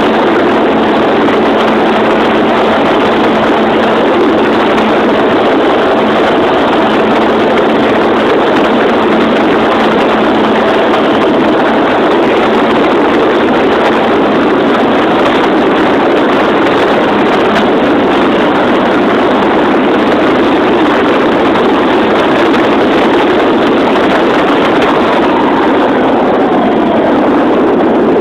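Radio-controlled model airplane's motor running steadily in flight, mixed with rushing wind, heard loud and close from a phone taped to the underside of the plane.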